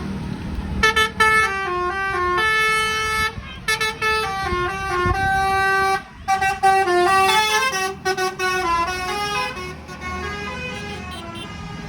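A bus's 'telolet' multi-tone horn playing a tune, its notes stepping up and down in quick runs with short breaks, over a low rumble. It starts about a second in and trails off near the end.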